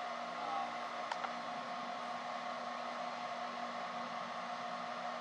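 Steady machine hum with several held tones, from a fan or motor running. There is a faint click about a second in.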